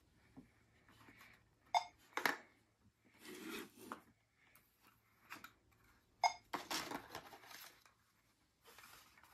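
Toy play-food boxes and plastic-packaged items being handled on a toy checkout counter: scattered light knocks and clicks, with stretches of rustling about three seconds in and again from about six and a half seconds.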